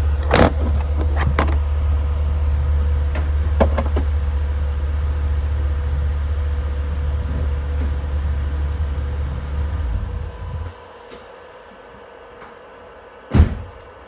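BMW E38's engine idling with a steady low hum, then shut off about ten seconds in, leaving the faint hum of the trunk-mounted mini fridge running. A few sharp clicks come in the first four seconds, and one loud knock near the end.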